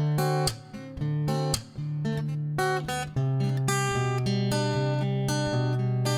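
Background music: acoustic guitar being strummed and picked, with a bass note that shifts lower about three seconds in.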